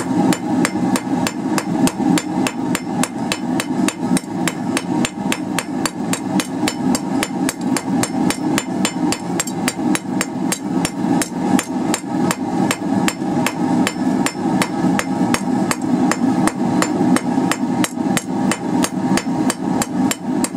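Hand hammer striking a quarter-inch round steel bar on an anvil in a steady run of light, quick blows, about four a second. The bar is being rotated under the hammer to planish it round and knock off the corners.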